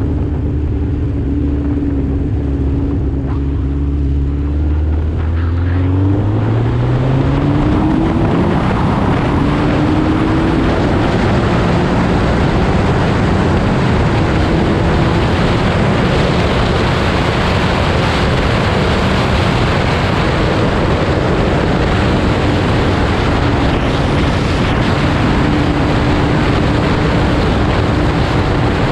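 Motorcycle engine running at low, steady revs, then climbing in pitch as the bike accelerates, about five to eight seconds in. After that, a steady rush of wind on the microphone at highway speed covers most of it, with the engine note faint and steady beneath.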